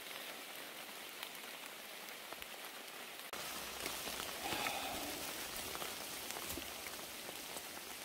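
Steady rain falling on forest leaves and wet leaf litter, an even patter with scattered drips. It grows a little louder about three seconds in.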